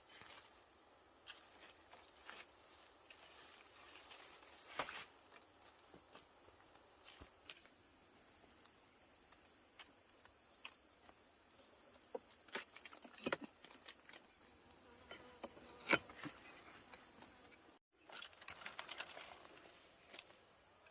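Insects chirping in a steady, high, pulsing trill, with scattered light clicks and knocks over it.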